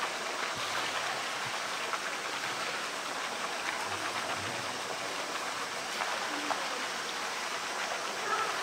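Steady rushing noise like running water, with a few faint clicks.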